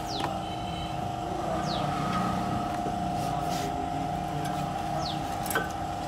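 A steady mechanical hum runs under a few sharp metallic clicks from a brake pad and its clips being handled, the loudest click near the end. Short high falling chirps come three times.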